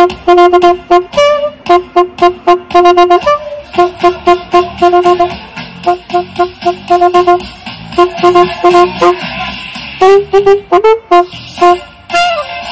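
Saxophone playing a riff of short, repeated staccato notes, with a few longer notes about ten seconds in, over a backing track with a steady beat.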